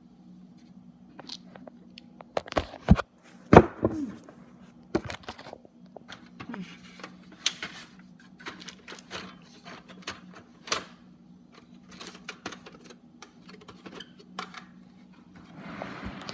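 Paper and the printer's plastic paper tray being handled while paper is loaded in: irregular clicks, taps and rustles, with the sharpest knock about three and a half seconds in and a longer rustle near the end. A faint steady hum lies underneath.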